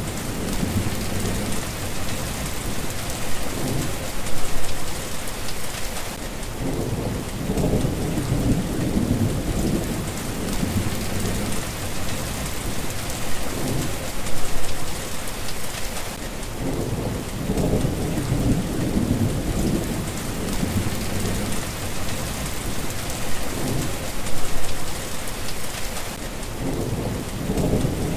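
Steady rain with low rumbles of thunder swelling and fading every few seconds.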